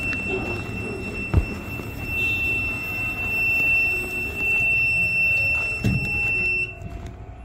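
Hyderabad Metro train squealing: a steady high-pitched squeal over the low rumble of the running train, cutting off near the end. Two sharp knocks, about a second in and near the end.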